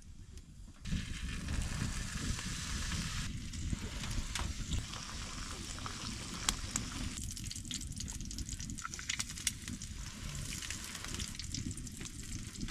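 Bacon and then eggs sizzling in a hot pan on a small wood stove, with scattered sharp pops; the sizzling starts about a second in.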